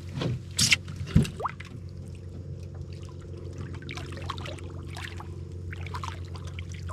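Water splashing and trickling as a snook is held in the water beside the boat to be revived and released. A couple of sharp splashes come in the first second or so, then smaller lapping and dripping, over a steady low hum.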